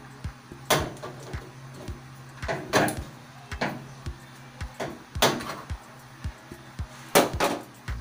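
Sharp knocks and clatter of hard plastic parts, the loudest coming about every two seconds, as hands work inside the control area of an open top-load washing machine while its water level sensor is being replaced. Music plays faintly underneath.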